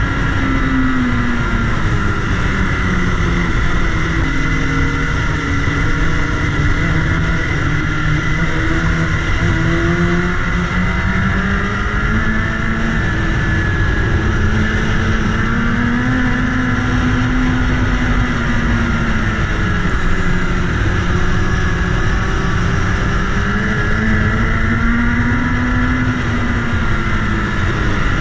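BMW S1000RR's inline-four engine running at road speed, its note slowly rising and falling a few times as the throttle changes, under heavy wind rumble on the bike-mounted microphone.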